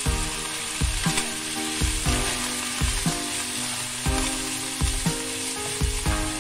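Cabbage and carrot strips sizzling in a hot stainless pan while a wooden spatula stirs and tosses them, with sudden knocks and scrapes of the spatula against the pan every half second or so. Background music plays underneath.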